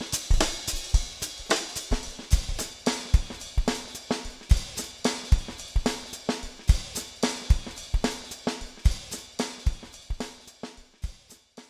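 Background music with a drum kit playing a steady beat of kick drum, snare and cymbals, stopping just before the end.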